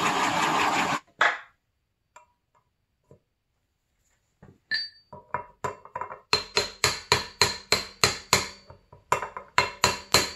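A blowtorch hisses steadily and is shut off about a second in. After a pause, a hammer starts tapping metal at the wheel hub and settles into quick, ringing strokes, about three a second.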